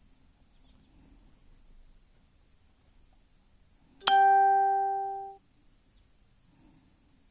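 A single bright musical note, struck once about four seconds in, ringing for just over a second and then cut off abruptly.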